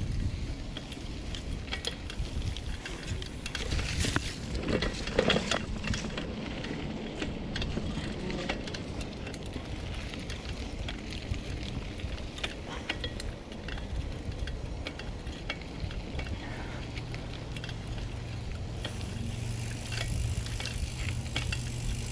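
Vintage bicycle ridden along a trail, rattling and clicking over a steady low rumble. A steady low hum joins about two-thirds of the way through.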